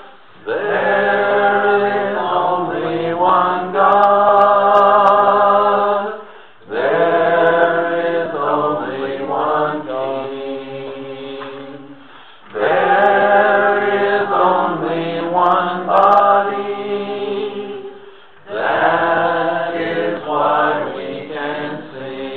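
Singing of a slow devotional chant-like song, in four phrases of about six seconds each, each starting loud and fading away before a short break.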